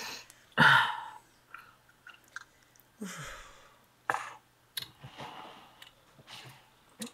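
Close-up chewing and wet mouth noises of a person eating fried chicken, in short irregular bouts with a few clicks, the loudest bout about a second in.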